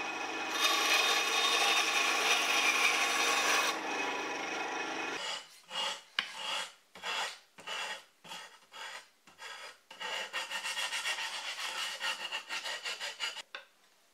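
A small electric saw with a thin blade runs and cuts through a wooden strip, the cut loudest from about half a second to nearly four seconds in. From about five seconds in, the notches cut in the wooden shelf edge are smoothed by hand: separate rubbing strokes at first, then a quicker steady run of strokes near the end.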